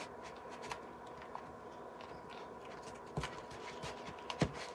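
Thick spackle being stirred in a clear bowl: soft squishing and small scraping clicks, with two dull knocks of the bowl or utensil on the table about three and four and a half seconds in.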